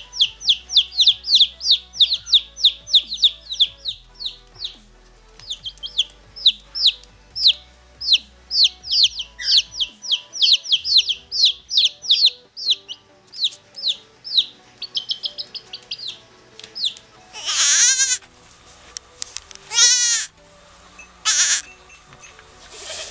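Rapid high chirping, several short falling peeps a second, runs for most of the stretch. Near the end come three or four loud, harsh bleat-like calls, the loudest sounds here.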